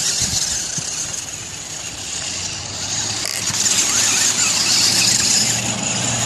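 Homemade electric RC crawler truck driving through dry leaves and onto grass: its electric motor and gears whine steadily, loudest about four seconds in, with leaves rustling under the tyres.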